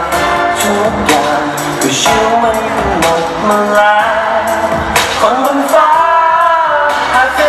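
Pop song performed on stage: a man singing into a headset microphone over a backing track with a steady beat.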